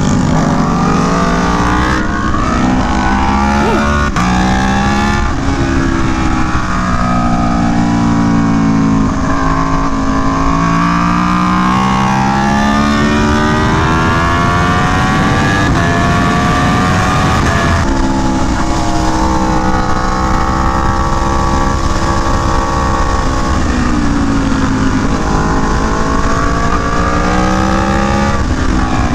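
Aprilia Tuono V4 1100 Factory's 65-degree V4 engine through an SC Project CR-T exhaust, heard from the bike at track speed: the pitch repeatedly climbs and drops abruptly at each quickshifted upshift, then falls away when slowing for corners before climbing again.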